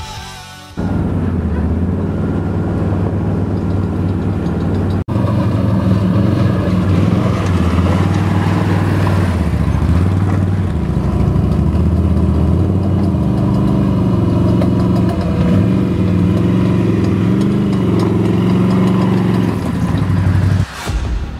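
ATV (quad bike) engines running, their pitch rising and falling with the throttle. The sound breaks off sharply about five seconds in and carries straight on.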